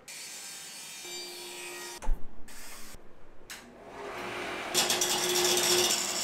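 Wood lathe spinning a hardwood blank while a hand-held turning tool cuts into it, a steady scraping cut over the machine's hum that gets louder about five seconds in. Before that come shorter spells of shop-machine noise, with a loud knock about two seconds in.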